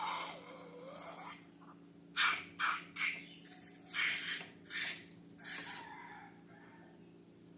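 Slime being squished and worked by hand, in a run of short wet squelching and scraping bursts over a low steady hum.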